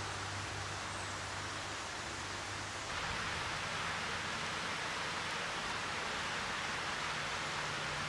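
Steady rush of flowing creek water, louder and brighter after a cut about three seconds in, with a faint low steady hum underneath.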